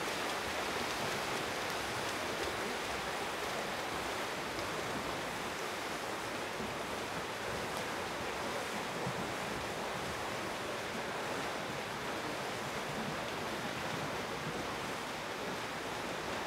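Steady rushing of water, an even hiss with no separate splashes or drips standing out.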